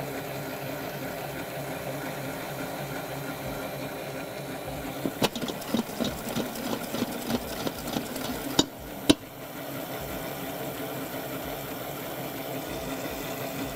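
Restaurant-grade stand mixer running steadily with a noisy motor hum, beating egg yolks and sugar until they turn pale and creamy. A few sharp clicks and rattles come between about five and nine seconds in.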